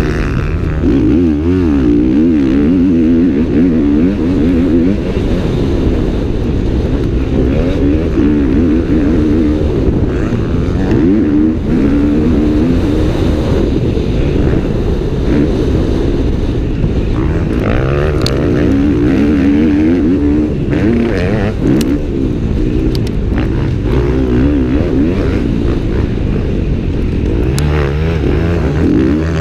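KTM 250F four-stroke single-cylinder motocross engine heard from on the bike, its revs rising and falling over and over as it accelerates, shifts and rolls off through the track. A few sharp clicks come around two-thirds of the way through.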